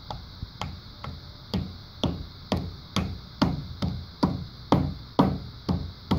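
Rubber mallet tapping a new differential seal into the Chrysler A520 transmission case, about two steady taps a second.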